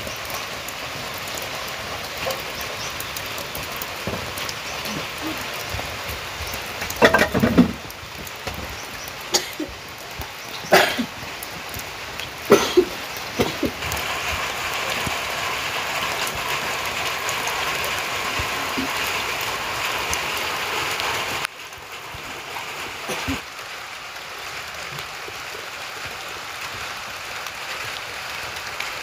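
Steady hiss of light drizzle falling on wet ground. Between about 7 and 13 seconds in, several short, loud animal calls cut through it.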